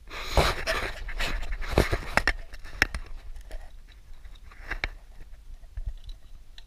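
Rustling and scraping, then several sharp metal clicks and knocks, as a valve cage is fitted down into the head of a John Beam R2020 pump.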